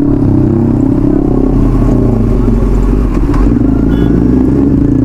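Kawasaki Z900's inline-four engine running under way, a loud steady exhaust note with no sharp revving.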